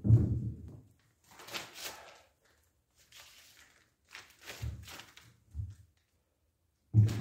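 Thumps, knocks and clatter of a portable jobsite table saw and its metal parts being handled and set into a wooden bench frame: a heavy thump at the start, scraping and rattling in between, and a sharp thump near the end.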